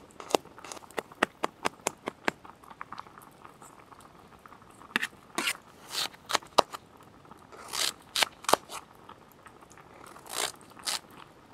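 Kitchen knife chopping on a steel frying pan: a quick run of sharp taps as garlic cloves are minced. After a few seconds come slower, crunchy strokes as the blade cuts through raw sweet potato and taps the pan.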